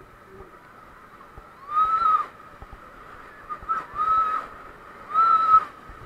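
Rafters' high-pitched whooping yells as the raft hits white-water rapids: three short calls, each rising and falling, about two, four and five seconds in, over a faint rush of water.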